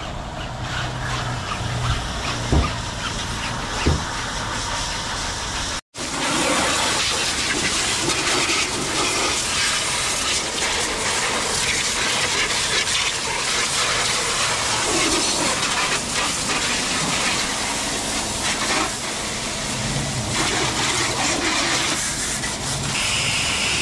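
Pressure-washer water jet spraying and splashing against a car's body: a steady hiss, with two short knocks in the first few seconds and a brief cut-out about six seconds in, after which the spray is louder.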